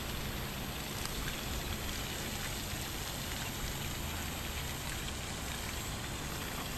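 Steady outdoor noise: an even hiss with a fluctuating low rumble and no distinct events.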